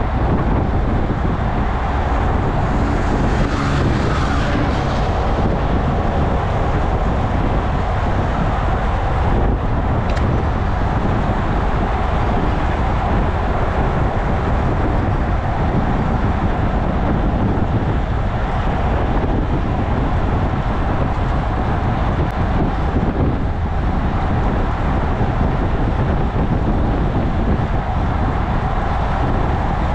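Steady wind rush over the microphone of a moving road bicycle, mixed with the tyre and engine noise of expressway traffic passing alongside.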